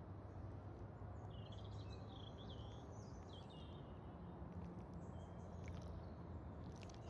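Small birds chirping in short warbling phrases over a low, steady outdoor rumble.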